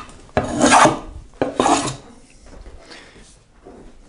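Hand plane used as a scrub plane, taking heavy rasping cuts along a wooden board to knock down its high corners and remove twist. There are two strong strokes about a second apart, then fainter sound.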